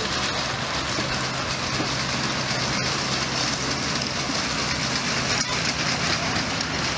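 Miniature train with open passenger cars rolling past on its small track: a steady noise of wheels running on the rails.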